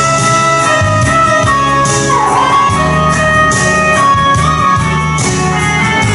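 Loud instrumental backing music: sustained melody lines over a steady bass beat, with no singing.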